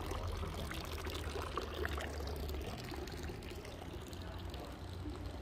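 Public drinking fountain's water pouring and running steadily.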